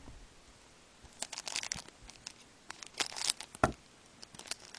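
Trading card pack wrapper crinkling and tearing as it is opened by hand: a run of crackles starting about a second in and returning near the end, with one sharp knock about three and a half seconds in.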